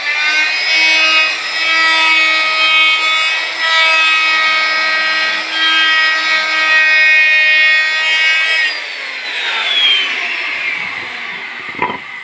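An electric woodworking power tool runs with a steady high whine while working wood. About nine seconds in it is switched off and its pitch falls as it winds down. A couple of short knocks come near the end.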